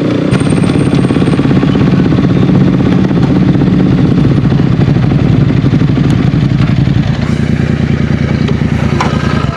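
Motorcycle engine running steadily at low speed, with a fast even pulse, as the bike rolls slowly over a rough road.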